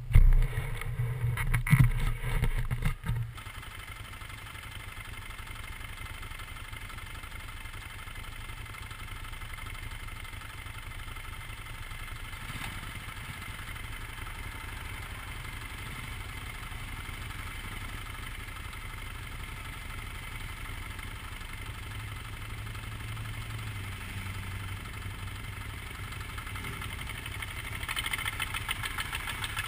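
Motorcycles idling steadily at a standstill, with loud thumps and rumbling on the microphone for the first three seconds. About two seconds before the end the engine note rises as the bikes begin to pull away.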